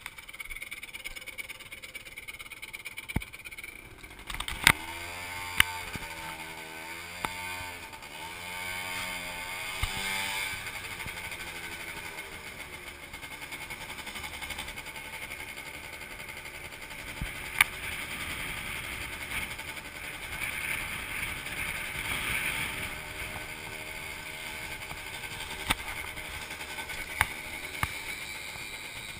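Motor scooter engine pulling away and riding, its pitch rising and falling several times as it speeds up and slows over the first several seconds, then running steadily. A few sharp knocks are heard along the way.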